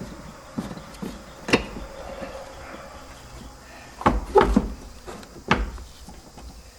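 Scattered knocks and clunks of metal tools and parts being handled during engine-bay work: a few light taps early on, a cluster of louder clunks about four seconds in, and one more sharp knock shortly after.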